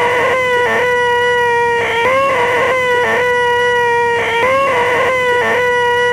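A man's voice holding a high, nasal 'eeeeh' whine, the 'most annoying sound in the world' gag, repeated with short breaks about every second on an almost unchanging pitch.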